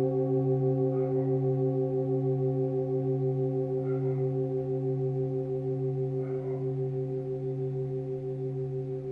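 Old Tibetan singing bowl ringing with a deep hum and several higher tones, wavering in a steady pulse as it slowly fades.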